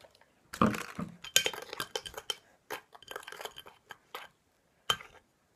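Metal spoon stirring slime of glue, kinetic sand and borax water in a glass bowl, clinking and scraping against the glass. The clicks come irregularly, with short pauses, and a sharp clink comes about five seconds in.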